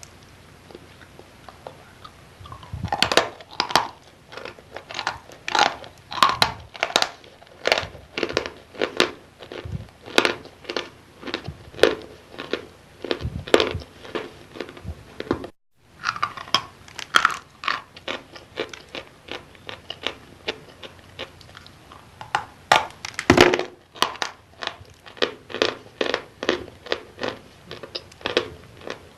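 Close-up chewing of wet chalk, crunching repeatedly at roughly two bites a second, with a brief break about halfway.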